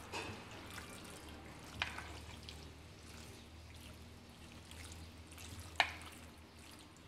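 Metal spoon stirring capeletti in tomato sauce in a ceramic dish: soft wet sounds of the sauced pasta, with three light clicks of the spoon against the dish, the sharpest near the end.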